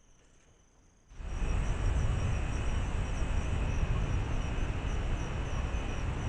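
Crickets chirping in a steady pulsing trill. About a second in, a loud, low rushing noise sets in suddenly and holds, with the chirping still running above it.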